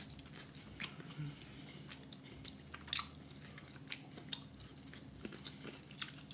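A person chewing a mouthful of rotisserie chicken, with faint, irregular clicks.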